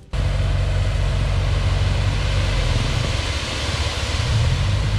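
Small dump truck's engine running steadily while its bed is tipped up, with gravel sliding out onto the road.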